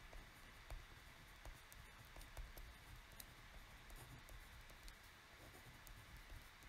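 Near silence with faint scattered ticks and scratches of a pen writing by hand on a paper pad.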